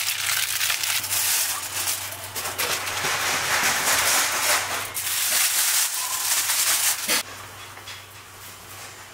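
Rustling and crinkling of plastic wrapping and cardboard as rolls of tape are taken from a box and handled, stopping abruptly about seven seconds in. A low steady hum runs underneath.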